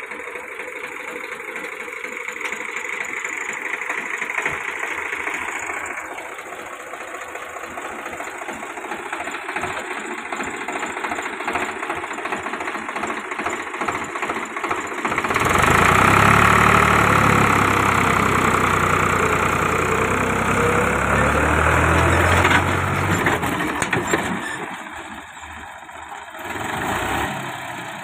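Tractor engine running steadily, growing much louder and fuller about halfway through for some eight seconds, then dropping back down shortly before the end.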